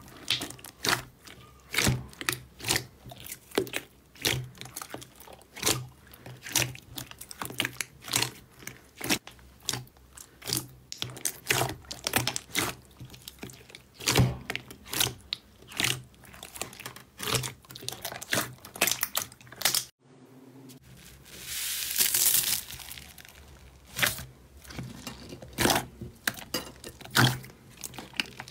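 Thick slime kneaded and squeezed by hand, giving an irregular run of sharp clicks and pops, several a second, as trapped air is pressed out. Just after a brief break about two-thirds of the way in comes a longer hissing squelch.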